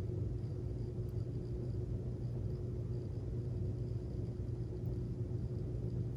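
Steady low hum, unchanging throughout, with a faint steady tone above it.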